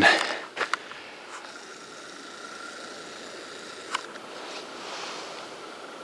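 Quiet woodland ambience: a faint steady hiss with a thin, high steady tone under it, and a few soft clicks, two about half a second in and one near four seconds.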